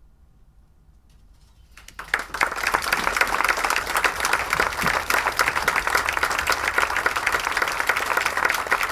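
Quiet for about two seconds, then an audience starts applauding, many hands clapping steadily.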